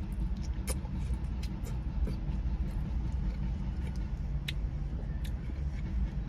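Steady low rumble of a running car engine, with a few faint, scattered clicks of eating.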